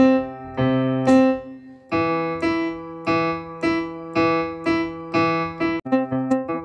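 Casiotone LK-520 electronic keyboard playing in a piano voice. A held chord comes first; then, about two seconds in, an even run of single notes at about two a second over a sustained low note. It breaks into a quicker, changing figure near the end.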